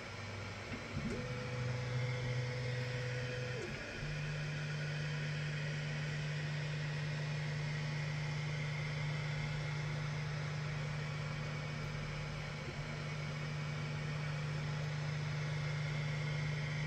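Desktop FDM 3D printer running a print: its stepper motors give a steady low hum-whine whose pitch steps to new notes as the moves change, with a higher tone for a couple of seconds about a second in, over the even hiss of its cooling fans.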